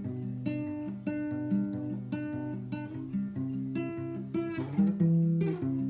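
Acoustic guitar strumming a chord progression, each chord struck and left to ring.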